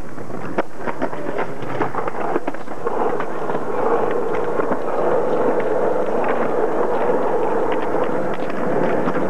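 Skateboard wheels rolling over concrete with a steady rumble, broken by many short sharp clacks of boards and wheels striking the ground. The clacks are thickest in the first few seconds, and from about four seconds in a steady rolling hum sets in.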